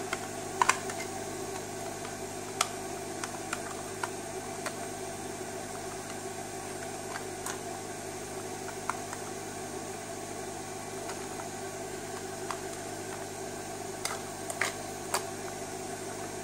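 Light clicks and taps of small plastic casing parts being handled and fitted, scattered irregularly over a steady background hiss and hum.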